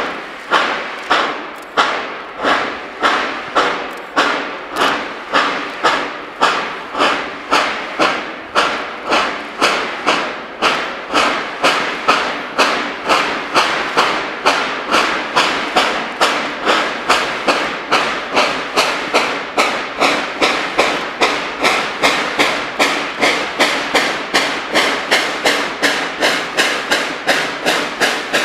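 Steam locomotive working hard, its exhaust chuffing in sharp, even beats that quicken steadily as it comes on, from slightly more than one a second to nearly three a second.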